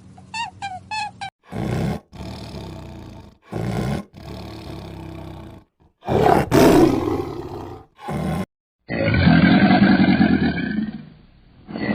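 A string of short, cut-together clips of animal calls. A few quick high chirps come first, followed by a series of deep calls from a large animal. The last two calls each last about two seconds.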